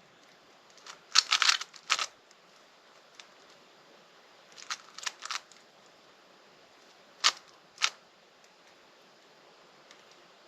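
Rubik's cube layers being turned by hand, clicking in short quick clusters with pauses between, and two single sharp clicks late on.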